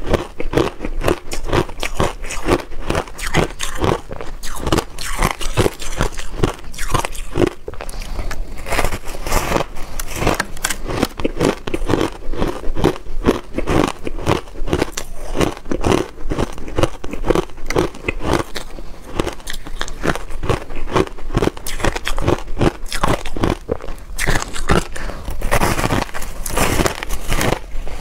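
Close-up crunching and chewing of powder-coated reshaped ice: a frozen block of crushed ice bitten and chewed in quick, dense, irregular crunches.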